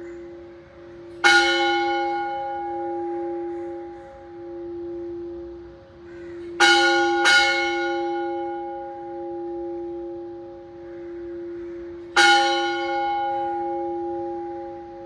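Large temple bell struck four times: once about a second in, twice in quick succession near the middle, and once near the end. Each stroke rings on in a long tone that slowly swells and fades.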